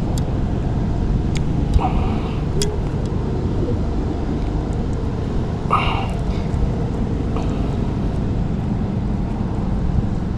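Steady low rumble with scattered light clicks and two short rustles, while a small hooked bass is handled to get the hook out.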